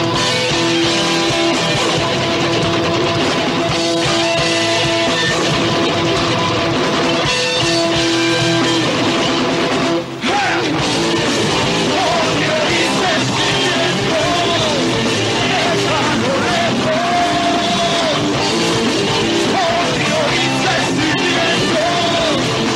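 Live rock band playing: electric guitars, bass and drums. The band breaks off for a moment about ten seconds in, then a voice sings over the band.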